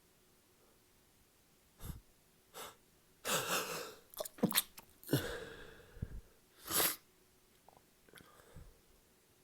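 A sneezing fit: a rapid run of sneezes with sharp breaths between them, starting about two seconds in and easing off after about seven seconds into a few faint breaths. The sneezer puts these fits down to drinking alcohol.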